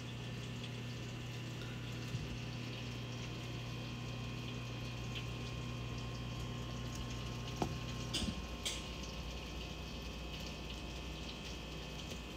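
Convection oven in air-fry mode running, a steady fan hum with a hiss over it. A few light clicks come about eight seconds in, and the low part of the hum drops away after them.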